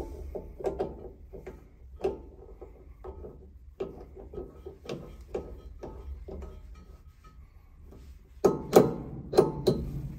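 Ceramic-topped pop-up waste plug in a ceramic wash basin being pressed by hand again and again, clicking and knocking as its spring mechanism latches and pops up, with a few louder knocks near the end.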